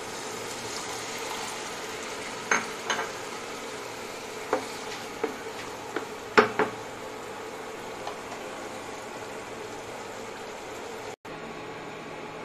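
Onion and tomato masala with added water sizzling and bubbling in a pan, while a spatula stirs it and knocks against the pan several times, the loudest knock a little past six seconds in.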